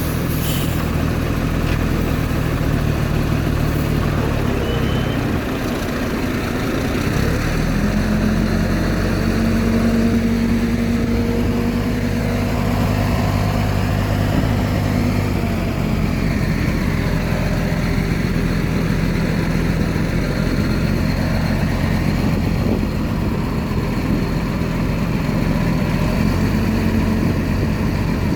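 Heavy diesel engine of earthmoving machinery running steadily, with its pitch and load shifting about 7 seconds in and again around 16 seconds.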